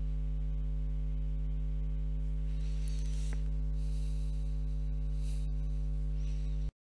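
Steady electrical mains hum with a buzzy stack of overtones, under faint soft swishes of an ink brush on paper. The sound cuts out abruptly for a moment near the end.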